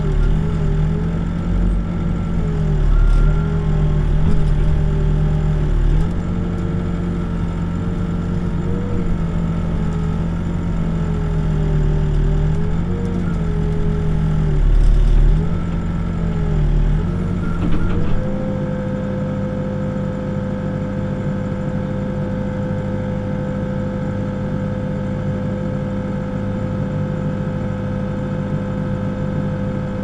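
Backhoe's diesel engine working under digging load, its pitch sagging and recovering again and again, then settling to a steady, slightly higher speed about two-thirds of the way through.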